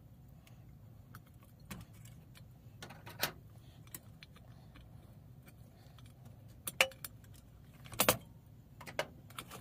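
Scattered metallic clinks and taps from the parts of a Coleman 508 camp stove as its burner and generator assembly is fitted onto the fuel tank. The loudest are a few knocks about seven and eight seconds in, over a steady low hum.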